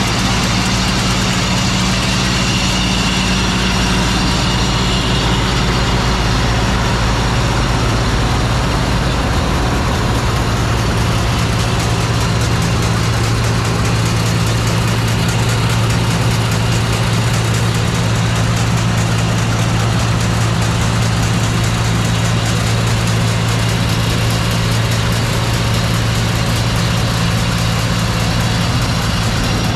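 John Deere 4400 combine's diesel engine running steadily under a haze of machine noise. Its tone shifts slightly about ten seconds in.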